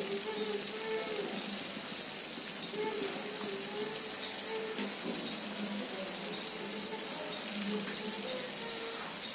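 Pav bhaji simmering in a frying pan on the stove: a steady sizzling hiss, with faint voices underneath.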